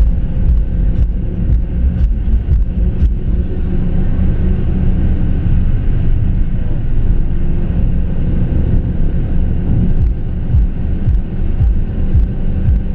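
BMW M5 E60's V10 engine, fitted with Dinan throttles and airbox, running under way, heard from inside the cabin as a steady drone over heavy road rumble. A few short clicks in the first three seconds.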